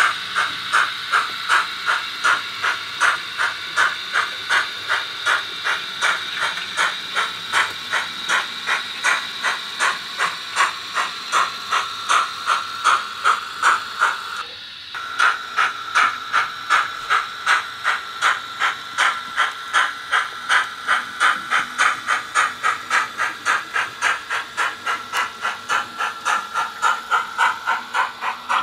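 The DCC sound decoder in a Roco HO model of a Bavarian S 3/6 4-6-2 steam locomotive plays steam-exhaust chuffs through the model's small loudspeaker as it runs. The chuffs come in a steady beat of about three a second, with a brief break about halfway through.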